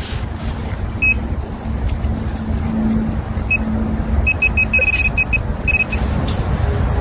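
Metal-detecting pinpointer giving short, same-pitch beeps: single chirps about a second in and halfway through, then a quick run of beeps as it closes in on a buried coin. A steady low rumble runs underneath.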